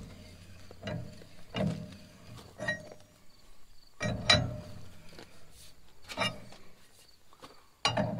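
Metal knocks and clanks of a large wrench being set onto and turned on a thread-cutting tap in a tractor manifold. There are about six separate knocks a second or two apart, the loudest about four seconds in and at the end.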